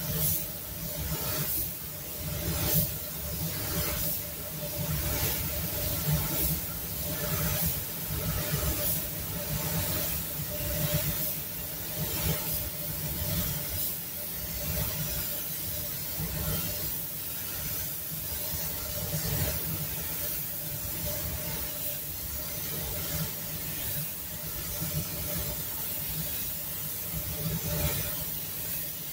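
Compressed air hissing from a DeVilbiss spray gun as it lays clear coat onto a car body, over the steady hum of the spray booth's ventilation.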